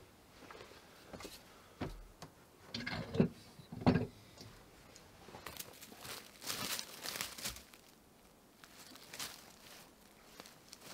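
A few loud knocks and clunks, then footsteps crackling and rustling through dry brush and dead branches on a forest floor.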